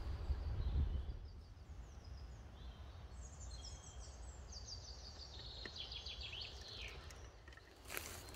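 A small songbird singing a few high, falling phrases over quiet woodland background, with a low rumble in the first second. Near the end come crunching footsteps on dry leaf litter.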